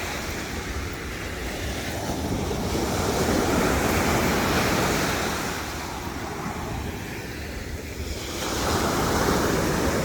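Ocean surf breaking and washing up the beach, swelling louder twice, with wind rumbling on the microphone.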